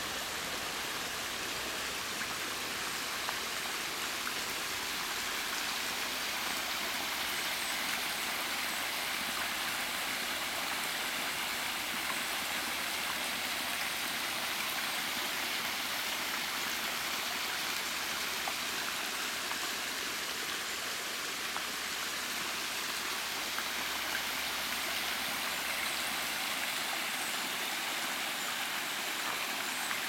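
Water of a small woodland stream and waterfall rushing steadily.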